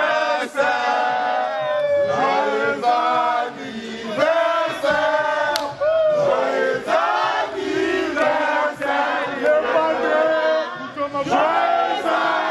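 A crowd of men chanting and singing together in loud, short, repeated phrases, with shouts mixed in.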